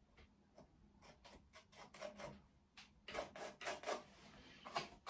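A brush scrubbing and dabbing thick acrylic paint mixed with texture paste onto canvas, a series of short scratchy strokes that grow louder about three seconds in. The stiff paste drags against the brush as it is worked in wet in wet.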